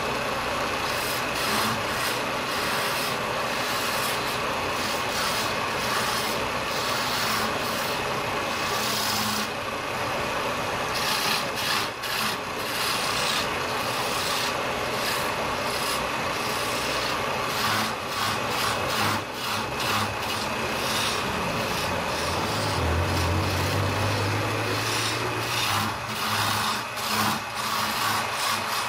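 Wood lathe's electric motor running with a steady hum while a hand-held turning chisel cuts into the spinning wooden baluster blank, giving a continuous scraping hiss of wood being shaved away. The cutting sound wavers as the tool is shifted along the wood, and a low hum grows stronger for a few seconds past the middle.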